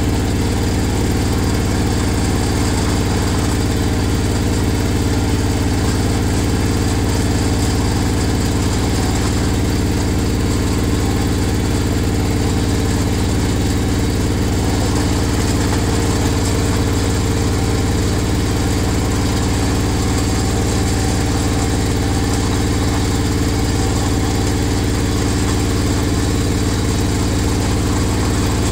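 A steady, unchanging mechanical hum, deep and constant in pitch and level, like an idling engine or running machine.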